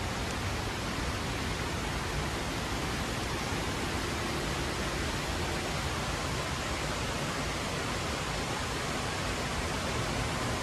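Steady, even rushing hiss of background ambience in an indoor garden atrium, with no distinct events.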